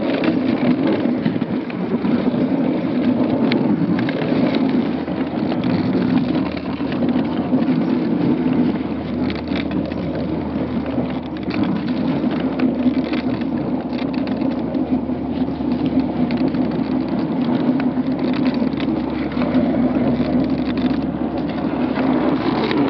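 Dogsled runners sliding over packed snow: a steady rushing scrape with small knocks and rattles from the moving sled.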